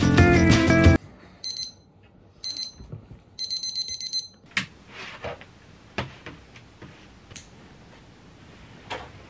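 Alarm clock beeping: two short bursts of rapid high beeps, then a longer run of beeps that stops a little under halfway through, followed by a few faint clicks.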